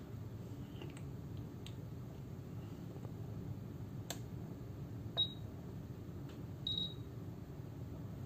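Two short, high-pitched beeps about a second and a half apart from the buzzer of an EV-AD2-EXT fire-detector address programmer. The programmer is searching and reading the address of the smoke detector seated on its base, and the first beep is the louder. A faint click comes a second before them.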